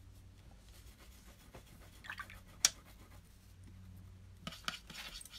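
Pencil and pen scratching on paper while colouring and drawing, with small ticks and one sharp click about two and a half seconds in, over a low steady hum.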